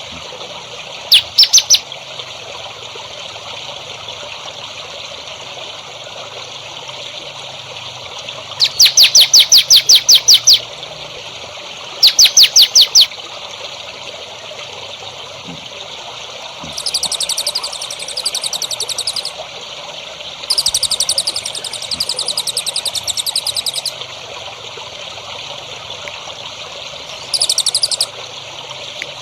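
Songbird singing in separate bursts: rapid runs of sharp, high notes, about five a second, and in the second half longer buzzy, very high trills. A steady trickle of running water sounds underneath.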